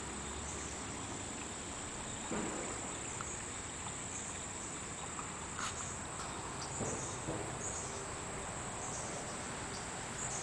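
A steady, high-pitched chorus of insects trilling, swelling and dipping every second or so, over a low outdoor hiss, with a few soft knocks.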